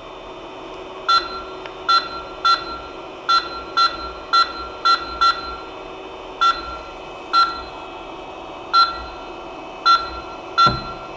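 Creality CP-01 touchscreen beeping at each tap on its move arrows: about a dozen short, high-pitched beeps at uneven intervals, over a steady hum.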